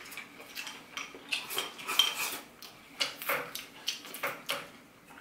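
Wooden chopsticks clicking and clinking against a small glass sauce bowl, with a brief ring about two seconds in, then close-miked chewing of a bite of steamed fish, in short irregular clicks and smacks.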